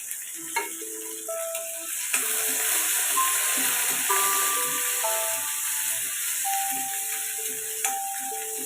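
Light background music of short melodic notes over mutton sizzling as it fries in a pan, the sizzle growing stronger about two seconds in. A few sharp clicks, like a spoon on the pan, cut through.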